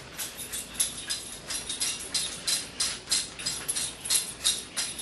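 Trigger spray bottle squirting soapy water onto a sharpening stone, short hissing squirts in quick, even succession, about three or four a second.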